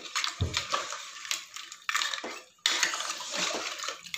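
A steel ladle stirring crab soup in a pressure cooker. The liquid sloshes and the ladle clinks and knocks against the pot and the crab shells, with a low thump about half a second in.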